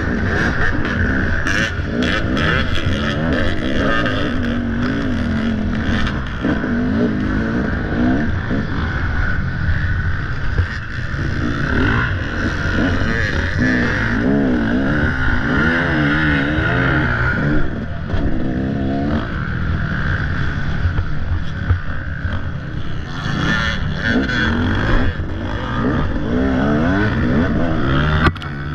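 Dirt bike engine revving up and down over and over as the throttle is worked on rough off-road terrain, with scattered short knocks and clatter.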